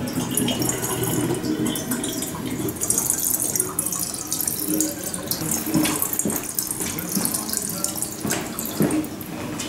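Water draining through the narrow neck of a glass double-egg vortexer, spiralling from the upper egg into the lower one: a steady running-water sound with many small irregular splashes.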